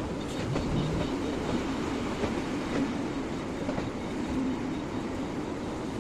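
Kobelco SK-140XM excavator's diesel engine running steadily while working, with a few light knocks.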